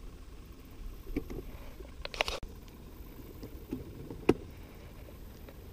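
Handling noise on a small fishing boat: a low steady rumble with a few scattered knocks and clicks. A brief brighter rattle comes just after two seconds, and a single sharp click a little after four.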